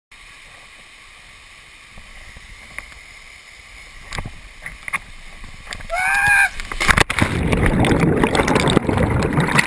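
A canyoner plunges into a plunge pool with the camera: after a soft hiss of running water, a knock about seven seconds in, then a loud churning rush of water and bubbles as the camera goes under.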